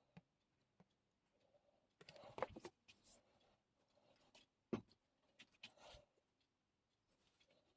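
Faint, scattered handling sounds: light clicks and taps, with a few short scrapes or rubs about two seconds in, near five seconds and around six seconds, against near silence.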